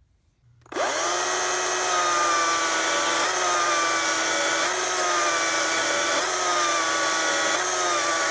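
Stihl MSA 200C 36-volt battery chainsaw starting up suddenly under a second in and cutting through a small log. Its electric motor gives a steady whine whose pitch sags and recovers about every second and a half as the chain bites.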